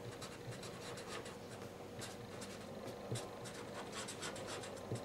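Faint scratching of a pen writing on paper: a quick run of short strokes as a word is handwritten, with a few slightly sharper taps.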